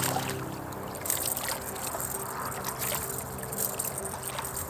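Water splashing and sloshing against shore rocks as a hooked mackerel thrashes at the surface on the line. A low steady hum sounds under it for about the first second and fades out.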